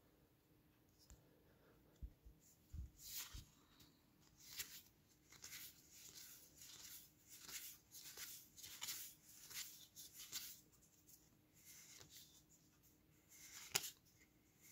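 Magic: The Gathering trading cards sliding against one another as they are flicked one at a time through a freshly opened booster pack. Each move makes a soft, quiet swish, a little faster than one a second, with a few low knocks of handling near the start.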